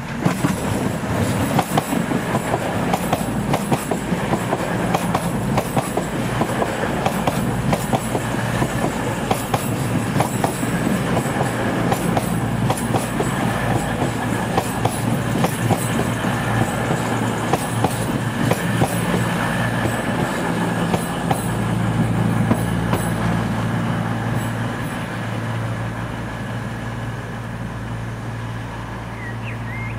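A train passing close by, its wheels clattering over the rail joints in a dense run of clicks. After about twenty seconds the clatter fades, leaving a steady low engine hum.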